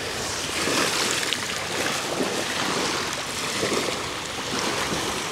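Small waves lapping and washing over a shingle shoreline in shallow water, a steady wash of water.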